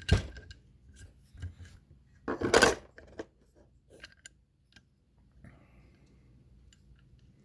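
Metal tools clicking and scraping against a motorcycle cylinder head as a homemade valve-spring compressor and a C-clamp are fitted over a valve: a sharp knock right at the start, a louder scraping clatter about two and a half seconds in, and light clicks between, then only faint background.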